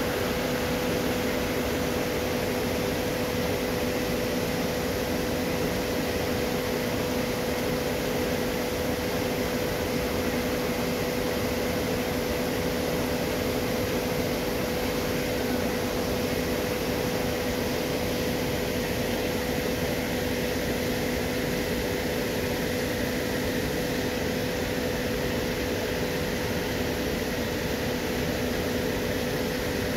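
Steady mechanical hum: an even rushing noise with a constant low droning tone, unchanging throughout.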